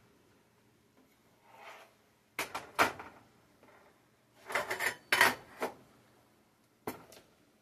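Kitchen clatter of things being handled: a soft scrape, then two clusters of sharp knocks and clinks about two seconds apart, and a single knock near the end.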